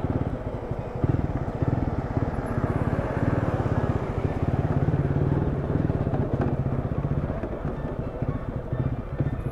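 TVS Apache RTR 200's single-cylinder engine running as the motorcycle is ridden slowly over rough ground, with the throttle opened a little between about three and five seconds in.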